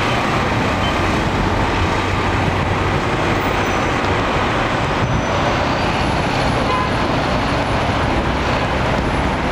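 Steady city street traffic noise: cars, a yellow cab, a box truck and a coach bus driving through an intersection, a continuous mix of engines and tyres.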